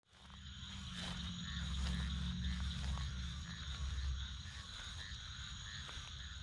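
Chorus of many frogs calling together, a steady high trilling with repeated calls through it, over a low rumble.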